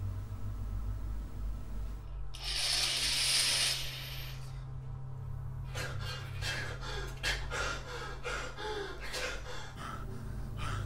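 A man breathing hard and gasping in shock: a long rushing breath about two seconds in, then a run of short, uneven breaths and gasps, over a steady low hum.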